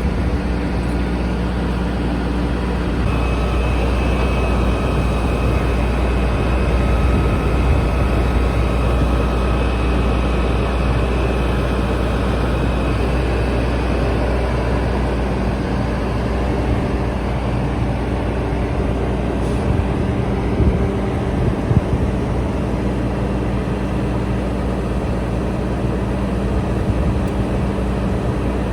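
A vehicle engine running steadily, with a faint whine from about 3 to 13 seconds in. A couple of short knocks sound around 20 seconds in.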